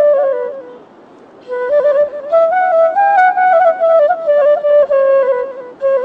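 Background music: a solo melody on a flute-like wind instrument. It breaks off for about a second near the start, then runs on in quick, stepping notes.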